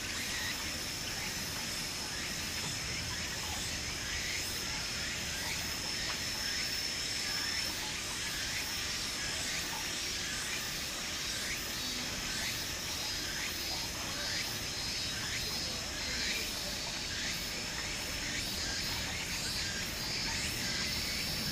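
Outdoor ambience: a steady high-pitched insect drone, with short chirps repeating about once a second.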